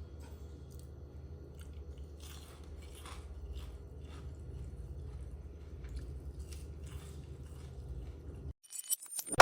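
Soft crunching and chewing of crispy fried potato balls: a scatter of short crunches over a low steady hum, which cuts off near the end.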